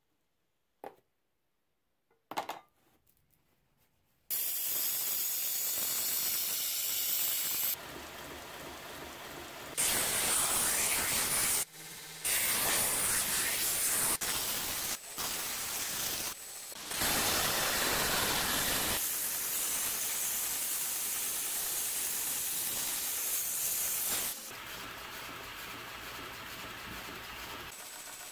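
Belt grinder running as a Damascus steel knife edge is ground against the abrasive belt: a steady grinding noise that starts suddenly about four seconds in. It drops in level and comes back several times as the blade is worked on the belt.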